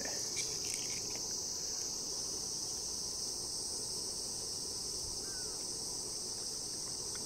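A steady chorus of insects, one continuous high-pitched trill that never breaks, over a low background rumble.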